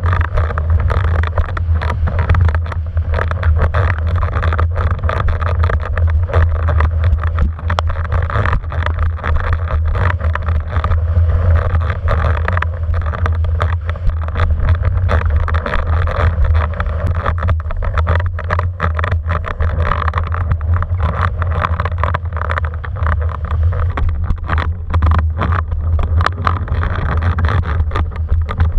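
Wind buffeting a mast-mounted camera's microphone on a windsurfer planing over choppy sea: a steady low rumble with rushing water and frequent short slaps and spatters of chop and spray.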